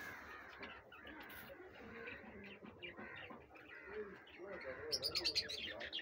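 Cockatiels chirping and chattering in many short calls, with a quick run of higher chirps about five seconds in.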